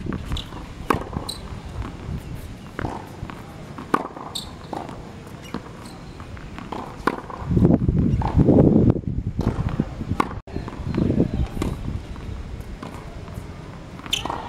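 Tennis ball struck by a racket and bouncing on a hard court: sharp single pops every second or so. Gusts of wind rush on the microphone about halfway through and are the loudest sound.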